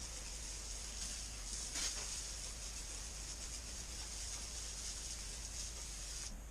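Aerosol can of Gunk engine degreaser spraying in a steady hiss, cutting off suddenly about six seconds in.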